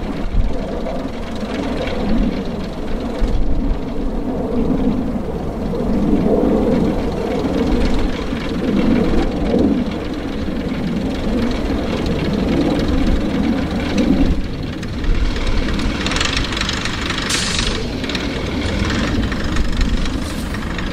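Class 121 'Bubble Car' first-generation diesel railcar's underfloor diesel engines idling with a rough, uneven hum, then working harder as the railcar starts to pull away near the end.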